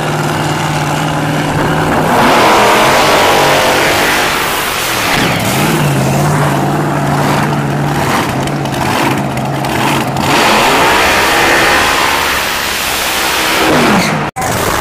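Drag-racing car engines running loud at the starting line, holding a steady note and revving up and falling back a few times.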